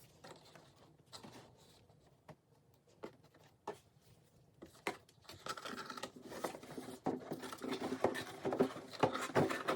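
Hands opening a boxed purchase: scattered light taps and clicks of the box and packaging being handled, turning into busier rustling of packaging about halfway through.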